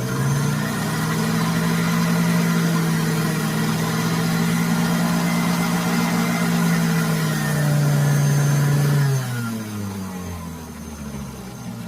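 Hamilton Beach Easy Clean centrifugal juice extractor running on its low speed as kiwis are pushed through, a steady motor hum. About nine seconds in it is switched off and the motor winds down, its pitch falling as it fades.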